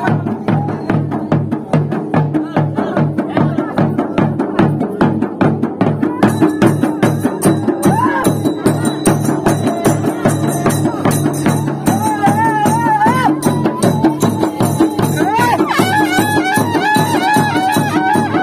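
Folk procession drumming: rope-tensioned barrel drums and a frame drum beat a fast, dense dance rhythm. Hand cymbals join from about six seconds in. A high, wavering melody comes in briefly twice in the second half.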